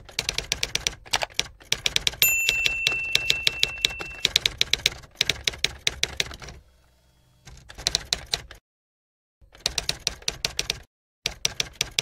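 Typewriter sound effect: runs of rapid keystrokes, with the bell ringing once about two seconds in and short pauses between runs.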